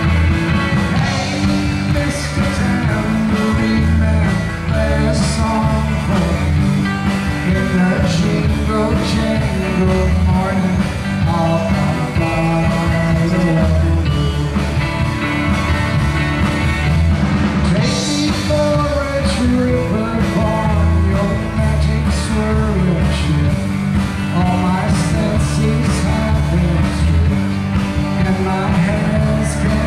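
A live band playing a song loudly: a man sings over electric guitar and bass guitar, with a steady beat.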